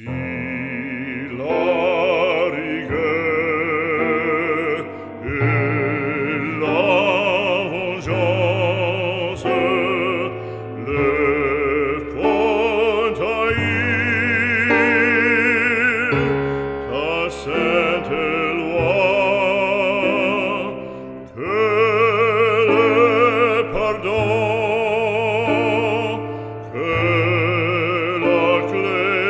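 Operatic classical music: a melody line with strong vibrato over sustained low accompaniment.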